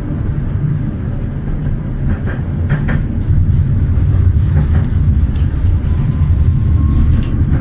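Tatra tram running along the track, heard from inside the passenger cabin: a steady low rumble, with a few sharp clacks about two to three seconds in and a faint high whine near the end.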